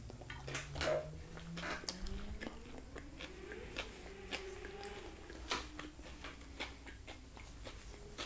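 Close-miked eating: a bite into a soft flour-tortilla fish taco, then steady mouth-closed chewing with soft, wet mouth clicks, louder around a second in and again midway.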